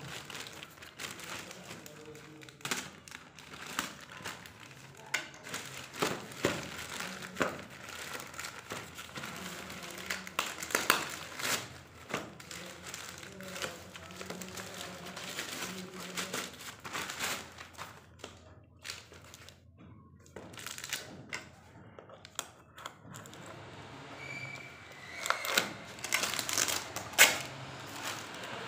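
Plastic courier mailer bag crinkling and rustling as it is torn open by hand, in irregular crackles, with a few louder rustles near the end.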